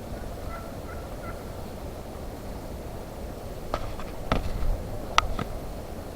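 Turkey calling: several short, sharp notes over the last two seconds or so, with fainter short notes about a second in.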